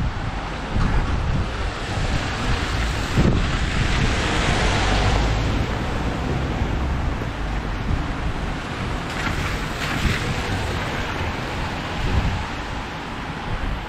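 Wind buffeting the microphone over the steady hiss of a rainy city street, the hiss swelling twice, around four and nine seconds in.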